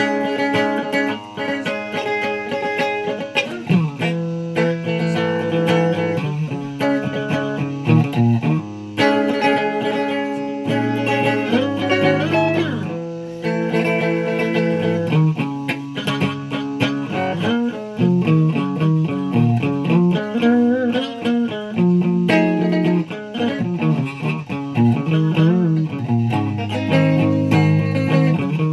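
A guitar being played continuously, mixing held notes and chords with wavering, bent and sliding notes.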